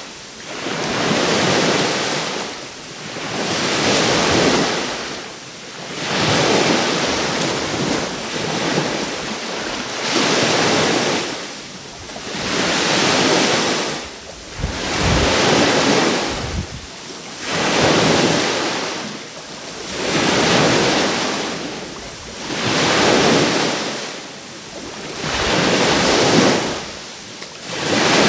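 Small sea waves breaking and washing up on the shore, the surf rising and falling in a steady rhythm about every two seconds.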